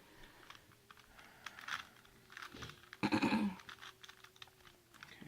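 Plastic Rubik's cube being turned by hand: a run of light, irregular clicks of the layers rotating, with a louder brief sound about three seconds in.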